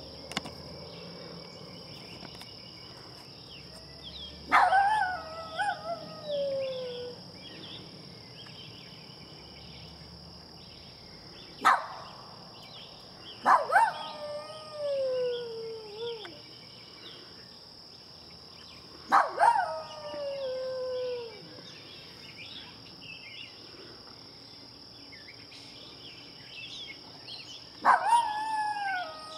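A small terrier-type dog howling four times. Each howl starts high and slides down in pitch over two or three seconds. Between the first two howls comes one short, sharp yelp.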